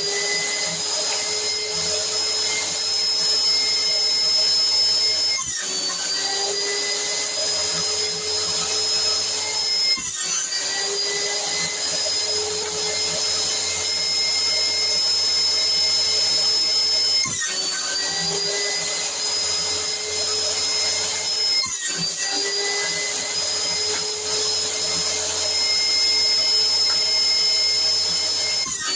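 Electric motor of a homemade jointer and table-saw rig running with a steady whine. Every four to seven seconds the sound breaks off briefly, and the pitch climbs back up afterwards.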